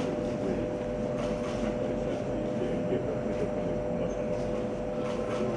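Steady mechanical room hum: two close, unchanging tones over an even low rumble, with no break or change.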